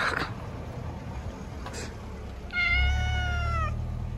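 Domestic cat giving one long meow, about a second long and gently falling in pitch, a little after halfway through.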